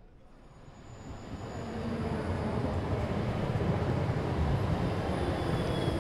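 City tram passing close by: a low rolling rumble that swells over the first two seconds and then holds steady, with a few faint high-pitched squeals.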